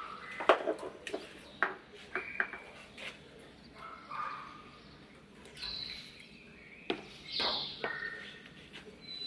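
Small plant pots being picked up and set down on a stone ledge: a series of short knocks and clatters, the loudest about half a second in. Birds chirp in short, high calls in between.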